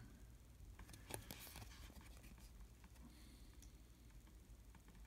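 Near silence, with faint scrapes and ticks of trading cards being handled and turned over in the fingers.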